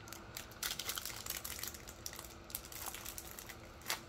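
Foil wrapper of a hockey card pack crinkling and crackling as it is tugged and twisted by hand, the pack hard to tear open. A sharper crackle comes near the end.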